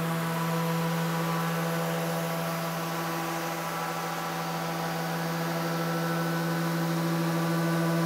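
Festool random orbit sander running steadily on a painted cabinet door with its dust-extraction hose attached: a steady motor hum with a hiss of abrasive on paint as 180-grit paper knocks down orange-peel texture.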